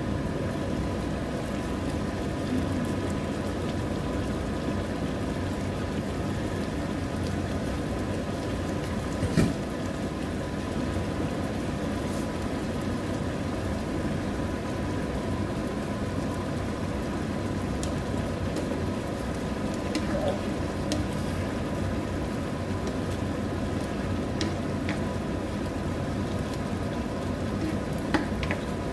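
Tomato-based chicken stew simmering and sizzling in an open frying pan, a steady bubbling hiss with a faint high hum under it. A few sharp knocks break through, the loudest about nine seconds in.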